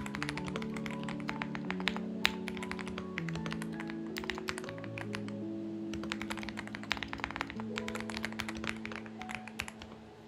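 Typing on a Xinmeng X98 mechanical keyboard in quick, irregular runs of clicks, with a short lull in the middle. Soft background music with slow, sustained chords plays underneath.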